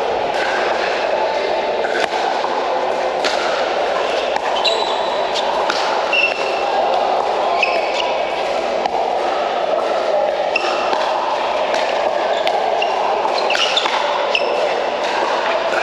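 Pickleball rally: paddles popping against a plastic ball about once a second, with sneakers squeaking on the court, over a steady background din of a large hall.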